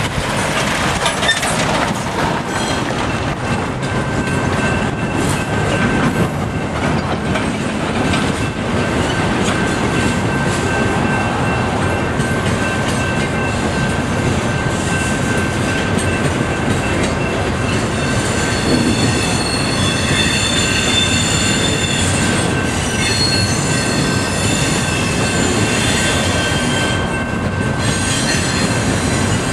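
CSX double-stack container train rolling past on TTX well cars, its wheels clattering over the rail joints in a steady loud rumble. High-pitched wheel squeal rides over it and grows stronger in the second half.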